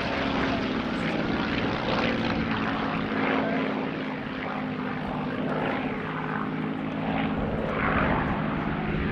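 Rolls-Royce Merlin V12 engine of a Spitfire PR XI in a display flypast: a steady propeller-engine drone that dips slightly in level partway through, then swells again.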